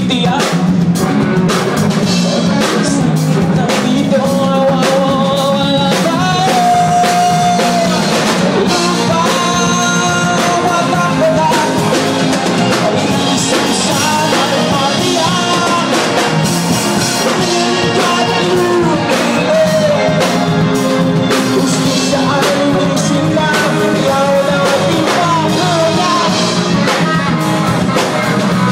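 Live band playing a rock song: a drum kit keeping a steady beat under other instruments, with a singer's voice carrying lines in Tagalog.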